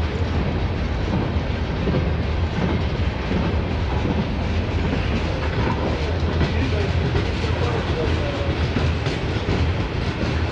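Freight cars of a long mixed freight train rolling past: boxcars, a covered hopper and tank cars, their steel wheels running on the rails with a steady, loud rumble.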